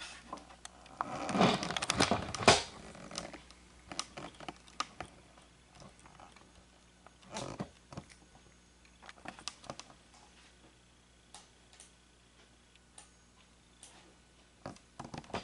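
Scattered soft clicks of a computer mouse and keyboard being used, with a louder rustling scrape about one to two and a half seconds in.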